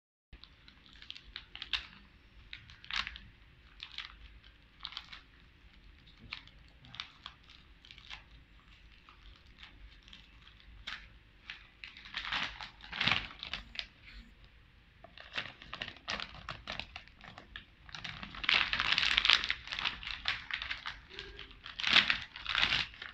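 Thin plastic bag of liquid glue crinkling as it is handled and cut with scissors, with scattered short crackles and clicks. The rustling grows louder and denser near the end as the bag is pulled open.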